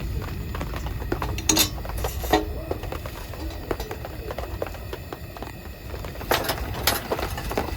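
A few light clinks and knocks of utensils against dishes or a pan, over a steady low background noise.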